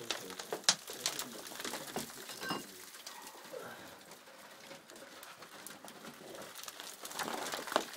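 Feet and hands scrambling over loose rock: irregular knocks, scuffs and the clatter of stones, thickest in the first few seconds and again near the end.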